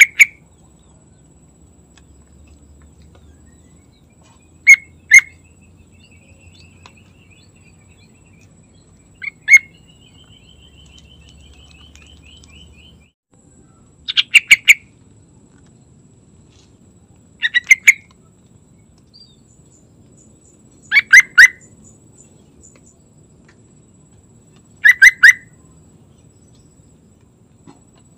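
Yellow-vented bulbul (trucukan) singing in short bursts of a few rapid notes, about seven phrases spaced a few seconds apart.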